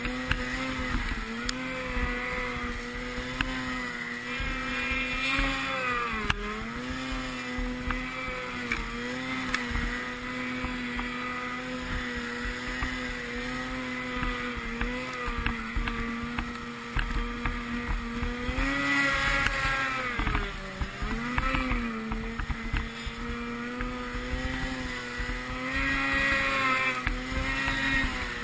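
Snowmobile engine running at high, steady revs while ploughing through deep snow. The revs dip and pick up again about six seconds in and twice more around the middle, then climb near the end.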